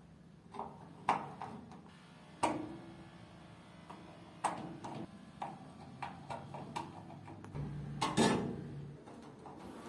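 Irregular light metal clicks and knocks from work on a door lock, as a piece of iron is fitted to shim it, with a louder clatter about eight seconds in.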